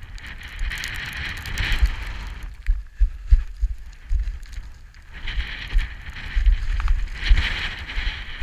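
Hiking boots crunching and sliding on loose scree in three uneven spells, with wind buffeting the microphone throughout.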